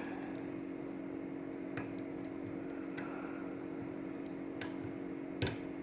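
Scattered small metallic clicks and ticks of a dimple pick working the pins of a Goal D9 dimple lock under tension, the loudest click near the end, over a steady low hum.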